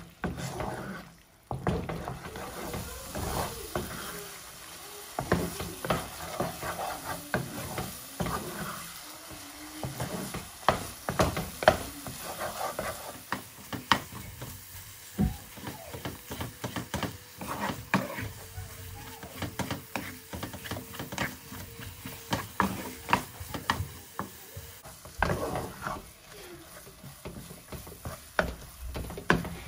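Wooden spatula stirring and scraping a thick, drying milk-powder mixture around a nonstick pan, in many short strokes and knocks, with a light sizzle from the cooking mass as its moisture cooks off on the way to khoya.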